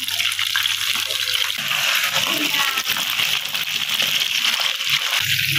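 Hot oil sizzling steadily with fine crackles as batter-coated prawns deep-fry in a pan.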